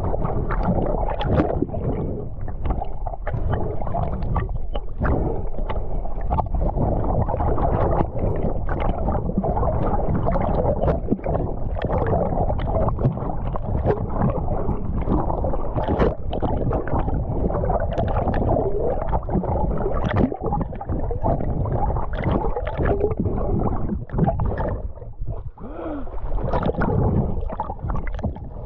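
Muffled rush and gurgle of water over a submerged action camera as a swimmer kicks hard along the surface, with frequent small clicks and knocks throughout.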